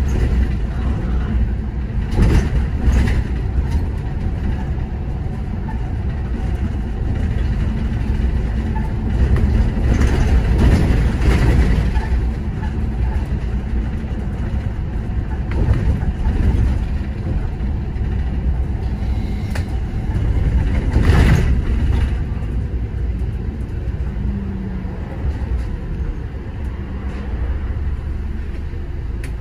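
City bus running along its route: steady low engine and road rumble, with several brief louder moments.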